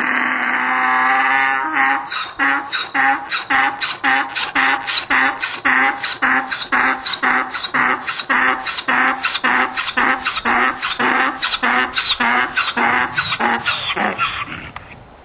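Donkey braying: one long drawn-out opening note, then a long run of rhythmic hee-haw strokes, about two and a half a second, that stop shortly before the end.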